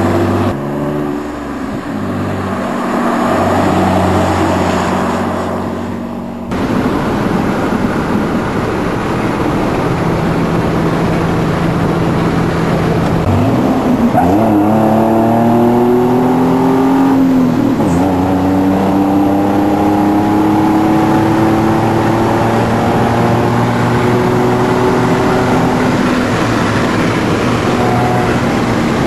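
Ford F-150's 4.2 L V6 through a Flowmaster dual exhaust, running under load. The sound changes abruptly about six seconds in. The engine pitch drops and climbs again at gear changes about 13 and 18 seconds in, then rises slowly.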